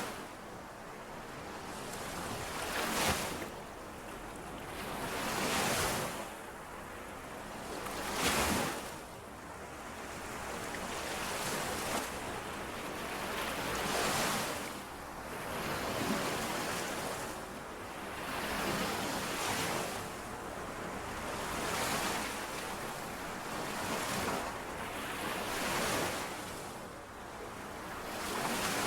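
Small lake waves lapping against the shore, each wash rising and falling away about every two to three seconds in a steady rhythm.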